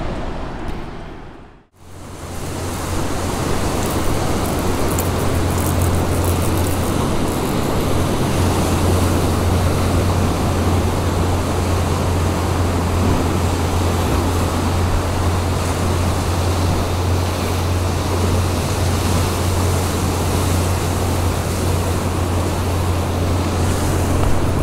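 Steady roar of ocean surf breaking on a rocky shore, fading in about two seconds in after a brief dip.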